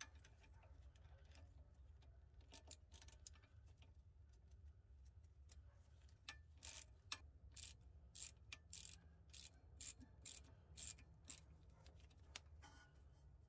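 Ratcheting wrench clicking faintly as it tightens a sway bar end link nut, in short irregular runs of clicks that come more often about halfway through.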